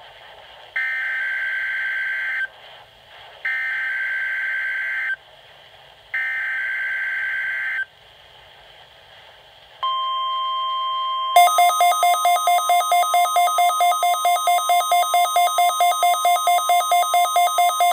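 NOAA Weather Radio required weekly test signal: three identical screeching SAME data bursts, then the steady 1050 Hz warning alarm tone. About a second and a half into the tone, a Midland weather alert receiver's alarm starts beeping rapidly, about four beeps a second, activated by the test.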